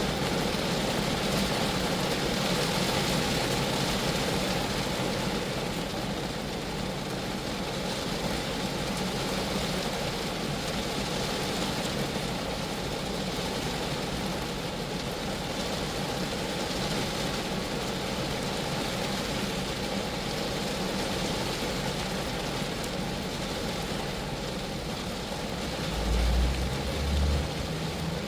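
Rain falling steadily on a Geo Metro car, heard as an even hiss with a low hum underneath. Two brief low rumbles come near the end.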